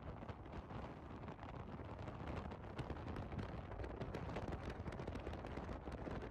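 Faint wind buffeting a phone microphone, a low rumble with many small crackles through it.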